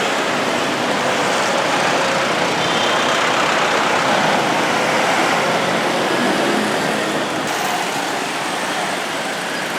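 Road traffic: a steady wash of passing motor vehicles, engines and tyres on the road.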